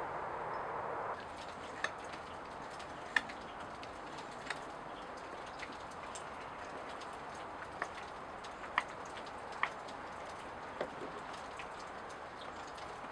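Steady soft outdoor hiss, with faint scattered ticks and taps a second or so apart; the hiss is louder for about the first second, then drops.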